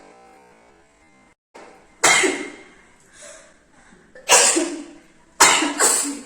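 A person sneezing in sharp, explosive bursts: one about two seconds in, another a couple of seconds later, and two in quick succession near the end.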